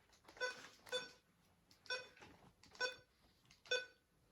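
Weather radio's keypad beeping as its buttons are pressed: five short, faint electronic beeps, roughly one a second, while a SAME county code is entered.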